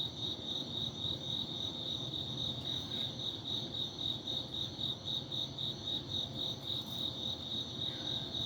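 A cricket chirping steadily: a high, evenly pulsing chirp, about four or five pulses a second.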